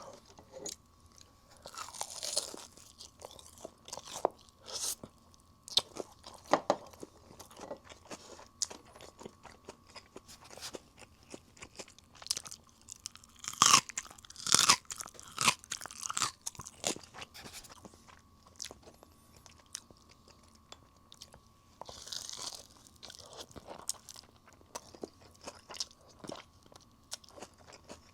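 Close-up eating of fried chicken: crispy batter crunching under bites, with wet chewing in between. The crunching is loudest in a burst about halfway through.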